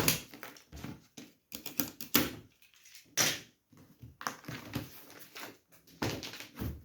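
A cardboard box being opened and its contents handled: irregular rustles, scrapes and knocks of cardboard and packaging.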